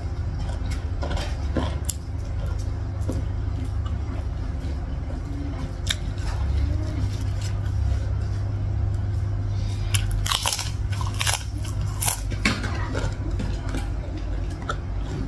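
A person chewing and biting food eaten by hand, with a run of sharp, crisp crunches about ten seconds in. A steady low hum runs underneath.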